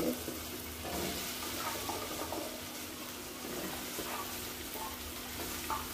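Steady sizzling of onions, tomato and green pepper frying in a pan.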